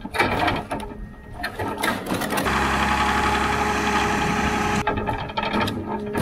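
Rottne F13-C forwarder loading logs: its 220 hp diesel engine and crane hydraulics running under the knocking and clatter of logs dropped into the load space by the grapple. For about two seconds in the middle a steady engine and hydraulic sound takes over, then the wooden knocks return, with a sharp knock at the end.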